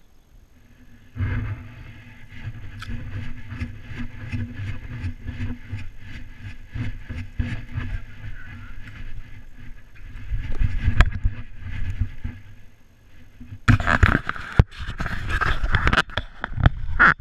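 Chest-mounted GoPro on an Irish terrier picking up the dog on the move: an even rhythm of scuffs, about three a second, as it goes under a porch. Near the end there is loud rubbing and sharp knocks as a hand grabs the camera housing.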